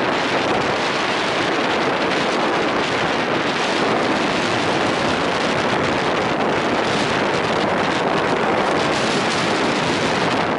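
Steady rush of wind on the microphone while riding a moving vintage Routemaster bus, with the bus's running noise beneath it.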